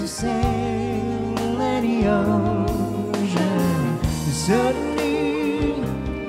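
A woman and a man singing a slow song together through microphones, backed by a small live band with guitar and violin. Their voices waver with vibrato over steady low bass notes.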